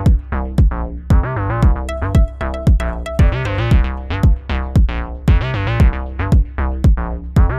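Instrumental electronic music: a steady, even beat under a pitched melody whose notes slide up and down.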